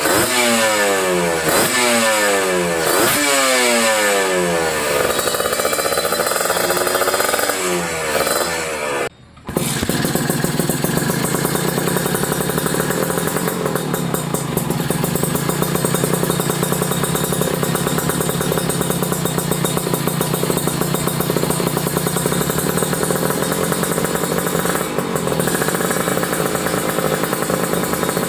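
Kawasaki Ninja 150 RR's single-cylinder two-stroke engine running through an Arrow aftermarket exhaust. In the first few seconds it is revved in several quick blips, the pitch rising and falling back each time. After a brief drop-out about nine seconds in, it settles into a steady idle.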